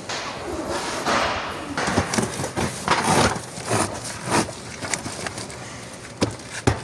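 Irregular knocks, thuds and scraping of hard objects being handled, with several sharp knocks spread through.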